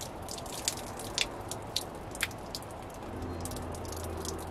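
Water draining from an upturned glass jar through a coffee filter, falling in irregular drips, each a sharp little tick. The filter makes the draining slow. A low hum comes in about three seconds in.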